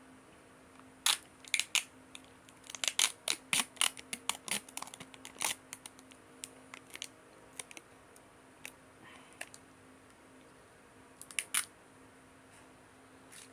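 Sealed peel-off lid being worked loose and pulled back from a plastic dipping-sauce cup: a dense run of sharp crinkling, tearing crackles for about five seconds, then scattered clicks, and two more crackles near the end.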